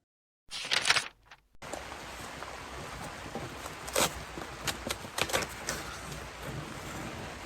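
Steady rain hiss with a cluster of sharp cracks and snaps about four to six seconds in, as the shotgun-holed foam-core composite panel is pulled apart.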